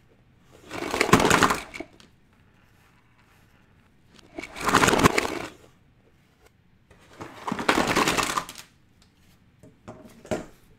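A pile of small plastic electronic gadgets and cardboard boxes clattering and tumbling onto a cutting mat. The clattering comes in three loud spells about three seconds apart, with a shorter rattle near the end.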